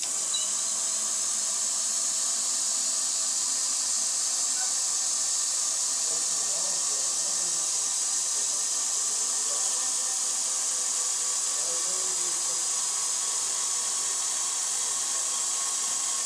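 Steady hiss of compressed air from the gantry transporter's pneumatic system, under a faint wavering whine of the carriage's electric drive moving along its lead screw.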